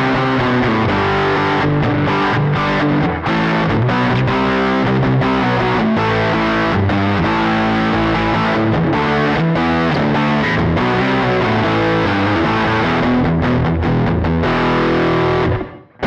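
Electric guitar played through a Line 6 Helix amp model with the gain turned all the way up: heavily distorted chords ringing continuously. The playing stops suddenly near the end.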